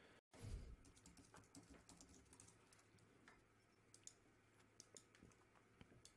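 Faint, scattered clicks of a computer keyboard and mouse in a quiet room.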